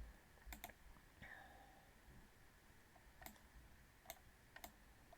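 Faint, scattered computer mouse clicks: a quick double click about half a second in, then single clicks near three, four and four and a half seconds.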